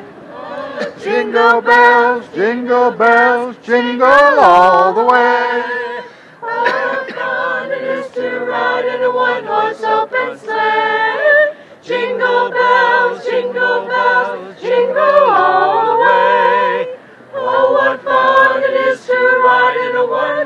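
A small group of female voices singing a cappella in harmony. Long held notes with vibrato come in phrases, with short breaks between them about 6, 12 and 17 seconds in.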